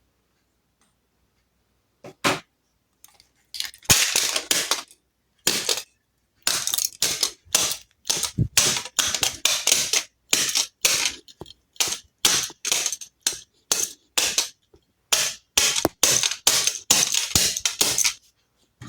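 Rapid, irregular sharp clicks and clacks of a computer mouse's plastic parts being worked by hand, in quick clusters starting about two seconds in.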